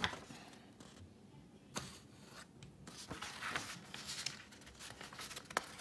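Pages of an album's photo book being handled and turned by hand: soft paper rustling with a few light clicks and taps.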